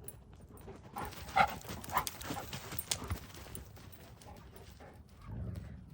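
Wolves and wolf-dogs scuffling and snapping at each other: a flurry of paws scrabbling on the ground with brief snarls, busiest for about two seconds starting a second in, then settling.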